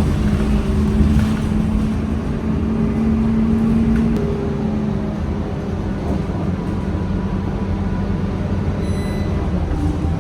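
A vehicle running with a steady low hum over a rumble; the hum drops slightly in pitch about four seconds in.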